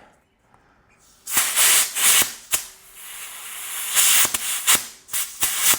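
Air hissing as a bicycle tire is inflated through its valve, in uneven spurts broken by sharp clicks, starting about a second in.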